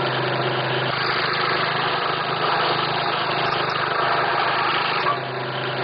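Scroll saw running with a steady hum, its reciprocating blade cutting a curved pattern through a piece of wood; the sound eases a little near the end.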